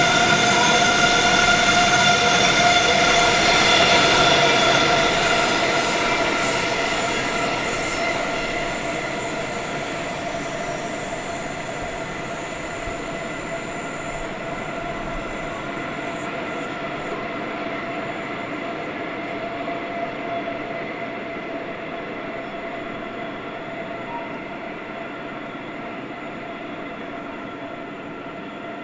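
Iron ore train's wagons rolling round a curve, the wheels squealing in a steady high ring over the rumble. The sound fades gradually as the train draws away.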